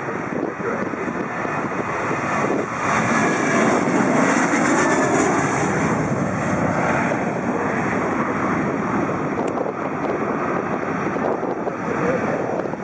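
Boeing 737-800 jet at takeoff thrust on its takeoff roll, lift-off and climb-out, its CFM56-7B turbofans loudest about three to six seconds in as it passes, then running on steadily as it climbs away.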